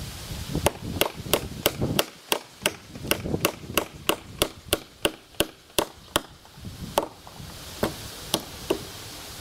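Hammer driving nails into a birch brace on a wooden swing post. Quick, even blows come about three a second, then slow to a few spaced blows near the end.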